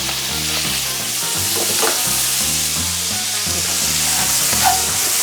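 Shell-on king prawns sizzling steadily in hot oil in a wok, the shells starting to char.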